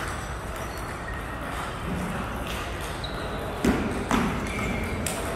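A table tennis ball clicking off the paddles and the table during a rally, several sharp ticks about half a second apart in the second half, over a steady room hum.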